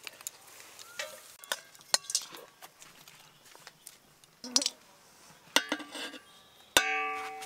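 Steel spoon clinking and tapping against an aluminium cooking pot as pieces of mutton are laid onto the rice, with scattered light clicks. Near the end the metal is struck once and rings briefly.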